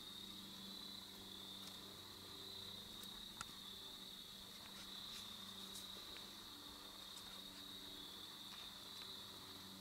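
Faint, steady high trilling of crickets, with a low hum underneath and a single soft tick about three seconds in.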